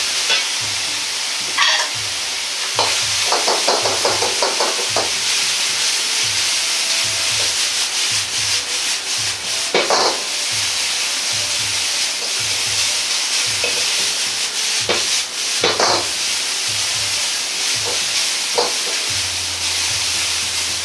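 Bean sprouts, pork and carrot sizzling steadily in a hot oiled wok while a metal ladle scrapes and turns them against the pan, with a handful of sharper scrapes along the way.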